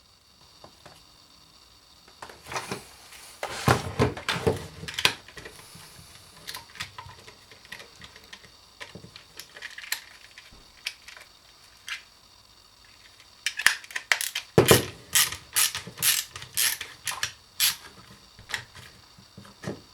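Parts of a Makita 18V battery pack being handled and fitted, giving irregular sharp clicks and knocks: a cluster a few seconds in, then a quieter stretch, then a denser run of clicks from about two-thirds of the way through.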